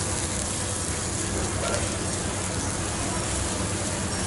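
Squid and eggplant sizzling over a charcoal grill: a steady hiss with a few faint clicks.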